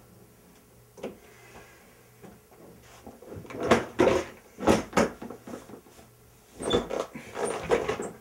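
A door clicking shut about a second in, then a run of irregular knocks, shuffles and rustles as someone walks across a small room and settles into a desk chair, over a faint steady low hum.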